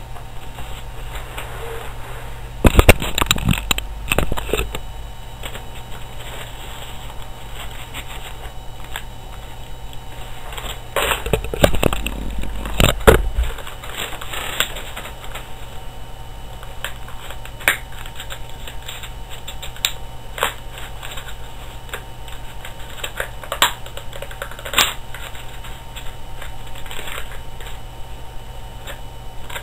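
A sheet of paper crinkling and rustling as hands fold and crease an origami boat. There are denser bursts about three seconds in and again from about eleven to thirteen seconds, with scattered lighter crackles in between.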